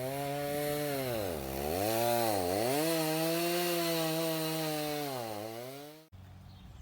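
Chainsaw running at high revs, its pitch sagging sharply twice and recovering as it loads up in the cut. It stops abruptly about six seconds in.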